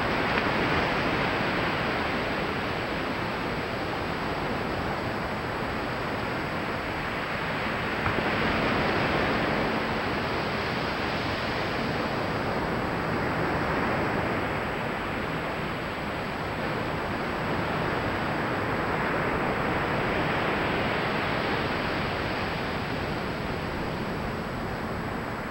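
Ocean waves breaking and washing up a flat sandy beach: a steady rush of surf that swells and eases every several seconds.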